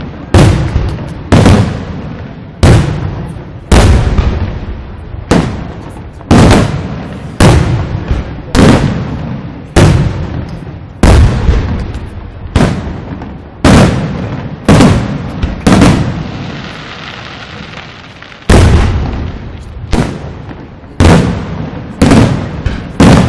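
Aerial firework shells bursting in quick succession, a loud bang about once a second, each fading away before the next. About two-thirds of the way through the bangs pause for a couple of seconds under a steady hiss, then resume.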